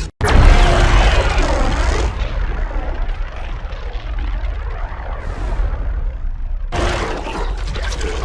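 A sound effect that starts suddenly with a deep rumble and a sweeping whoosh, like a jet passing over, slowly dying away. A harsher, brighter noise cuts in near the end.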